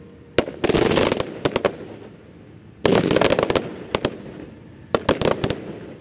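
Ground-fired consumer firework battery (cake) firing three rapid volleys of sharp shots: one about a second in, one near three seconds and one near the end.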